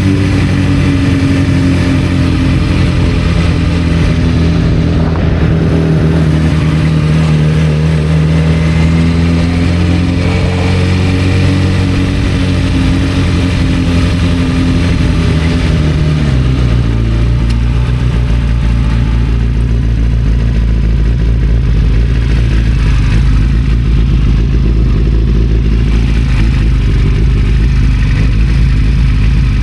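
1991 Kawasaki ZZR-400 inline-four motorcycle engine running under way with its note rising and falling a little, then dropping in pitch a little past halfway and settling into a low, steady idle.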